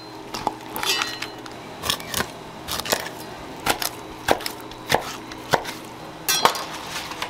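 Kitchen knife cutting mackerel on a wooden cutting board: a series of sharp knocks as the blade strikes the board, roughly one every half second through the middle.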